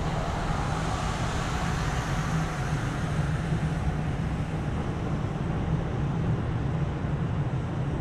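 Steady city traffic noise with a low rumble, and a car passing on the road about one to three seconds in.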